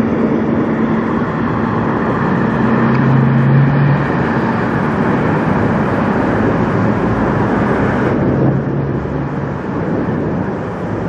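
Diesel engine of a black Peterbilt semi truck running as it drives past, together with general road-traffic noise. The engine note shifts about three seconds in.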